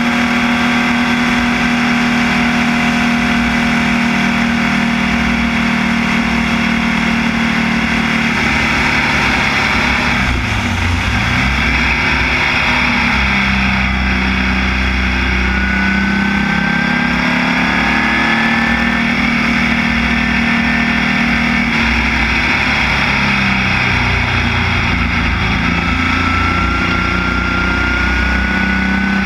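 Air-cooled Volkswagen flat-four engine of a Formula Vee racing car running hard at high revs, heard from the open cockpit. About ten seconds in, the revs drop sharply and climb again as the car slows for the corner at the end of the straight.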